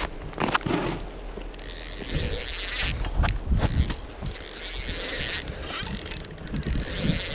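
Ice fishing reel whirring in three bursts of about a second each while a lake trout is fought, over low knocks of handling. The reel is icing up, which the angler says was messing with the drag.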